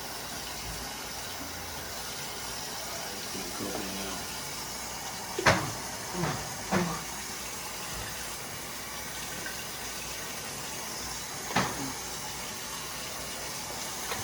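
Water running steadily from a kitchen tap, as seafood is rinsed under it, with a few brief sounds breaking in around the middle and again near the end.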